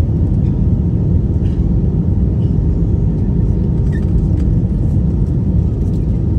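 Steady low rumble of engine and airflow noise inside the cabin of an Airbus A320-200 in flight on descent, heard from a window seat over the wing.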